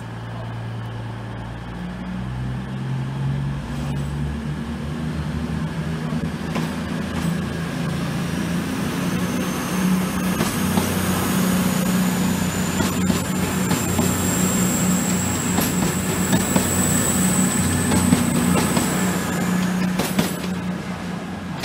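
CrossCountry Voyager diesel multiple unit pulling away. Its underfloor diesel engines rev up in steps as it gathers speed and grow louder, joined from about a third of the way in by a high whine that slowly rises in pitch and stops shortly before the end.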